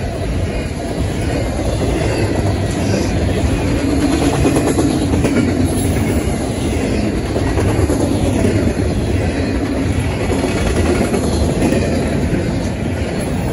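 Double-stack intermodal well cars of a CN freight train rolling past at high speed: a steady, loud rumble of steel wheels on the rails.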